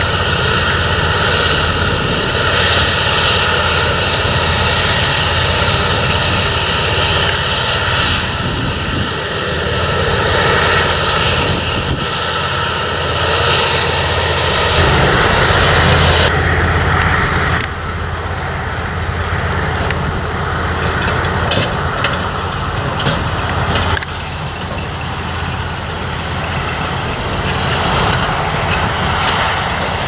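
Claas Lexion 770 combine harvester running while cutting wheat: a steady engine and threshing drone with a whine. About halfway through, this gives way to the engine and tyres of an articulated grain lorry driving across stubble.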